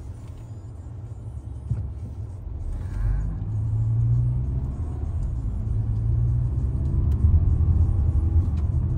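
Car engine and road rumble heard from inside the cabin. About three seconds in, the engine note rises and it grows louder as the car speeds up.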